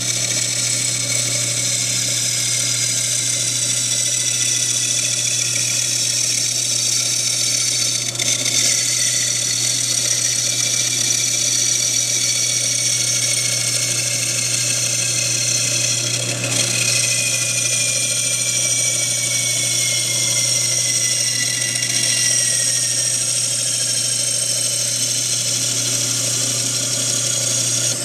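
Gryphon C-40 water-cooled diamond bandsaw cutting a glass bottle as the bottle is turned slowly against the blade: a steady motor hum under a high grinding whine. About two thirds of the way through, a thin high tone slides slowly down in pitch.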